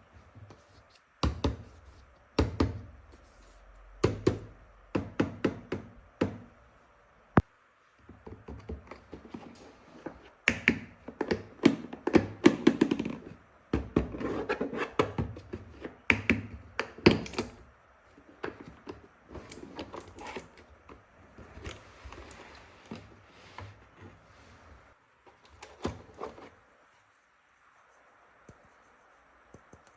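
Hard plastic toy tool pieces being handled and set down: irregular knocks, taps and clatter that stop about three-quarters of the way through.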